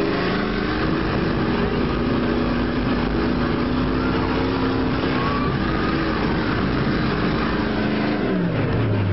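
Jack Link's Sasquatch monster truck engine heard from inside the cab, running at steady high revs as the truck drives across the sand, then dropping in pitch near the end as it eases off.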